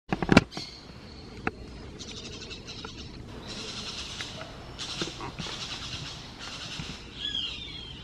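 Forest ambience: a high, pulsing wildlife chorus that swells and fades in patches, with a short falling bird call near the end. A burst of sharp knocks opens it.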